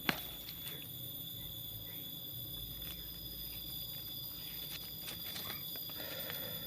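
Steady high-pitched insect trilling from crickets in the vegetation, several unbroken tones at once, with one sharp click right at the start and a few faint ticks later.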